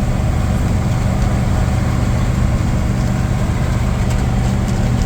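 Steady engine and road drone heard from inside a moving vehicle's cabin.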